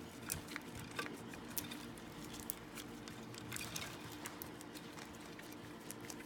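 Faint, scattered light clicks and ticks of small steel bolts being handled and hand-threaded into the cap of a pneumatic flooring stapler.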